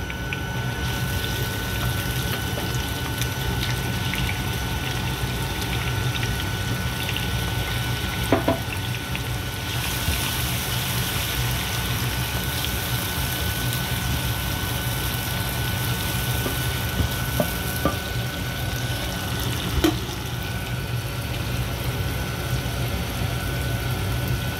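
Chopped green peppers sizzling in hot oil in a non-stick pot, stirred with a wooden spoon, with a few light knocks of the spoon against the pot. The sizzle grows brighter about ten seconds in, over a steady low hum.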